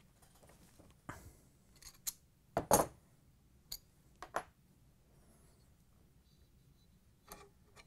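Short metallic clicks and clinks of pliers and an Allen wrench against a washer motor's steel pulley as the pulley's set screw is loosened and the pulley is worked off the motor shaft. The loudest clink comes a little under three seconds in, and a few fainter ticks are scattered through the rest.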